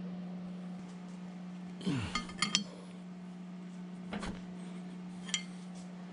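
Large open-end wrench clinking against the end nut of a horizontal mill's cutter arbor as the nut is tightened: a quick run of ringing metal clinks about two seconds in, then single clicks, over a steady low hum.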